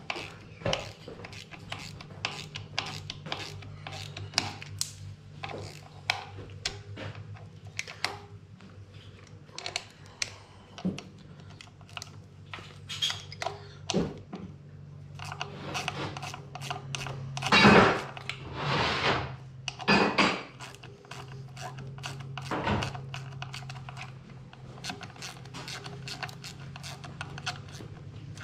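Metal tools and parts clinking and knocking during hand work on a gearbox and clutch, over a steady low hum, with a few louder scrapes about two-thirds of the way in.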